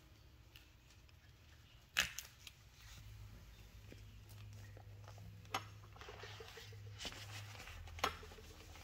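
Handling noise from a phone held against skin: a faint low rubbing with three sharp clicks or taps, about two, five and a half, and eight seconds in.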